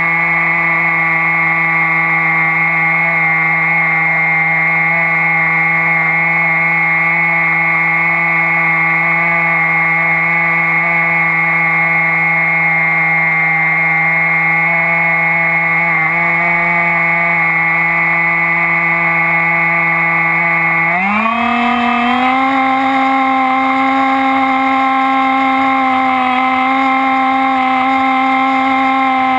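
Electric motor and propeller of an Axn Floater Jet RC plane running at a steady whine, heard close from the onboard camera. About 21 seconds in, the pitch rises quickly as the throttle is opened, then holds at the higher pitch.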